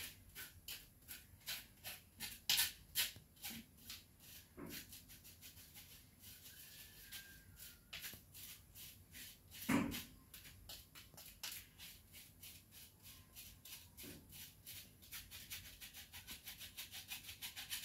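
A wooden spoon rubbing sugar through a plastic mesh sieve: faint, rhythmic scratchy strokes a few times a second, with a few soft knocks.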